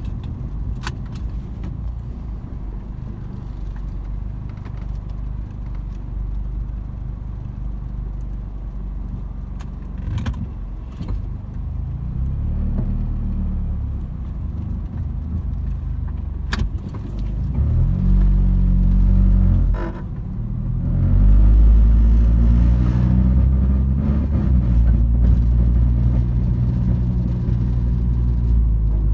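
Car cabin noise while driving through residential streets: a steady low engine and tyre rumble. The engine note rises as the car speeds up about two-thirds of the way in, then again shortly after, where the rumble is loudest. A few short clicks come through early on.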